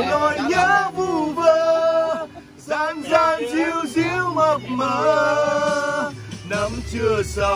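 Men singing a song with long held notes over a music accompaniment with a bass line.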